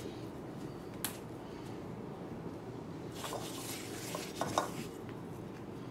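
A hand mixing a crumbly flour dough in a glass bowl: a single click about a second in, then soft scraping and rustling of the crumbs around three and four and a half seconds, over a steady low hum.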